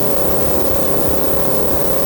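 Electronic music from a hardware synthesizer jam: a dense, noisy, engine-like drone with one steady held tone over it.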